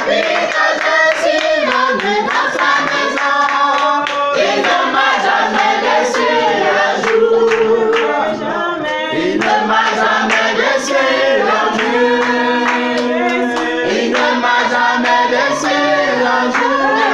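A small group singing a worship song together, with hand clapping on the beat.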